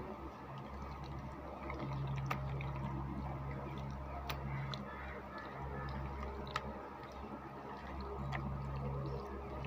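Wet squelching and squishing of a hand kneading spice paste into anchovies in a steel plate, with a few sharp clicks, over a steady low hum.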